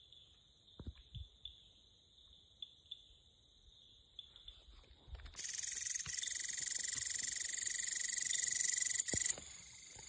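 Night insect chorus of steady high-pitched calls. About five seconds in, a much louder shrill buzzing insect call starts close by and cuts off sharply about a second before the end.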